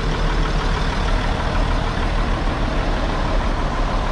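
Nissan CK 31 L concrete pump truck's diesel engine running steadily, a constant low rumble with no change in speed.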